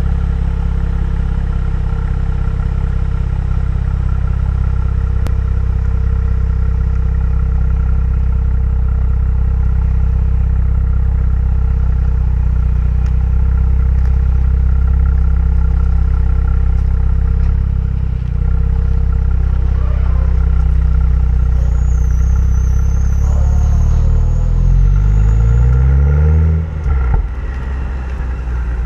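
2015 BMW M235i's turbocharged 3.0-litre inline-six, stock exhaust, running with a steady low drone for about twenty seconds. The revs then rise under acceleration, dip briefly with an upshift of the eight-speed automatic, and climb again near the end.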